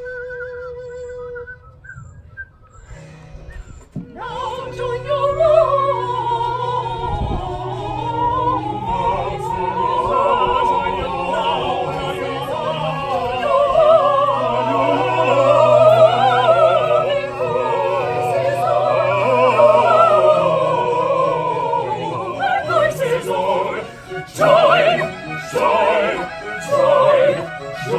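Operatic singing with instrumental accompaniment: after a held flute-like note in the first second or so and a short lull, voices come in about four seconds in and sing wavering, overlapping lines over a sustained low note. Near the end the music breaks into short, separated sung notes.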